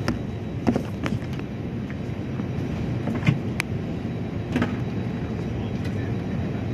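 Steady low rush of an airliner cabin during boarding, with about half a dozen short clicks and knocks scattered through it.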